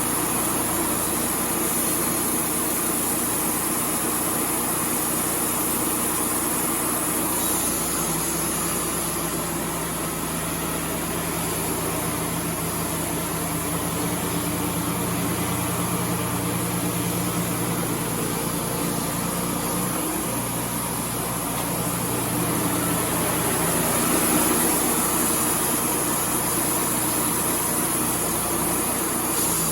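Wood-Mizer LT35 portable band sawmill running steadily, its engine note shifting about seven seconds in and again near the end.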